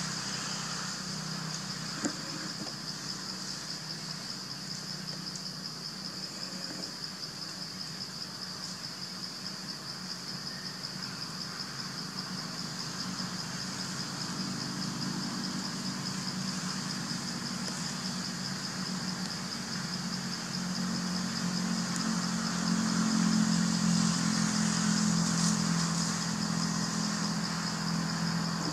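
A low, steady engine hum that swells for a few seconds near the end, under a continuous high-pitched buzz.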